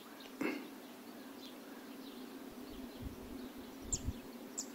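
Faint open-air countryside background with a few short, high bird chirps near the end and one soft bump about half a second in.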